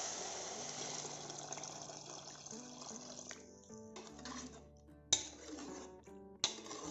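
Water poured into a metal pot of fried rice and vegetables, splashing steadily and then fading out about halfway. A steel ladle then stirs the watery rice, knocking sharply against the pot twice near the end.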